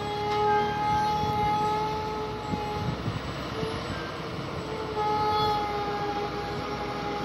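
Heavy goods trucks' diesel engines running as they climb a curve, with a low rumble and a few knocks. Over them, a long steady horn-like tone holds with only small wavers, weakening for about two seconds in the middle.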